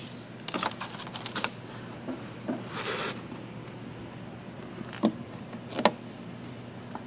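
Light handling noises of hands working a strip of clear paint protection film and its paper backing on a truck's door edge: scattered small clicks and a brief rustle about three seconds in, over a faint steady hum.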